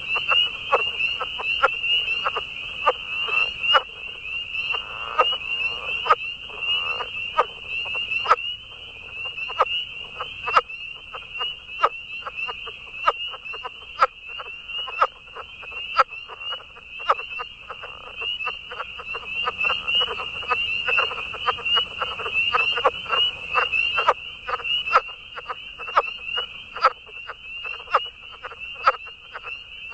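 A dense chorus of calling animals: a steady high-pitched chorus, with sharp clicking calls repeating irregularly about once or twice a second over it.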